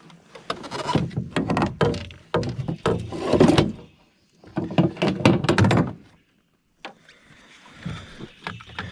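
Knocking, thumping and clattering inside a small fishing boat as gear is moved about and bumped against the hull. The sounds come in two busy runs of several seconds, then a few lighter knocks.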